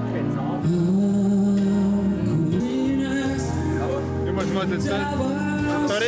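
A man singing into a microphone over instrumental accompaniment, holding long notes.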